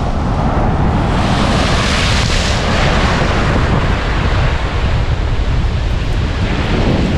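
Wind buffeting the microphone over a steady rush of surf on an open beach. The hiss swells about a second in and eases after about three seconds.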